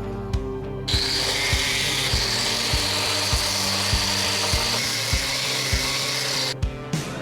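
A handheld power tool runs steadily with a high-pitched whine. It starts abruptly about a second in and cuts off near the end, over background music with a steady beat.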